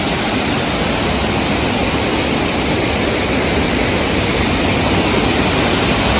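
Large waterfall's falling water, a loud, steady, unbroken rush of noise.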